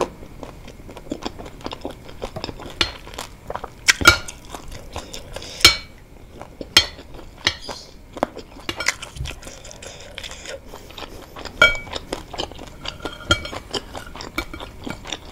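Close-up chewing of wontons, with a metal spoon clinking and scraping against the soup bowl; a few of the spoon strikes stand out as sharp clinks.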